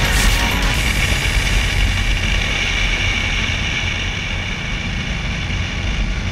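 Ducati Multistrada 1200 S's L-twin engine running steadily under way, with wind noise, heard on board the moving motorcycle.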